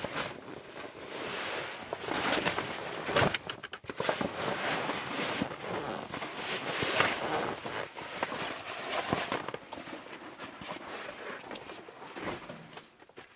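Heavy canvas swag rustling and scraping as it is rolled and pushed into place on a camp stretcher, with footsteps on dirt. The handling noise comes in irregular bursts and dies away over the last few seconds.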